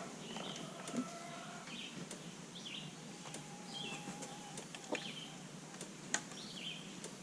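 A small bird chirping again and again, short high calls about once a second, with a few faint clicks in between.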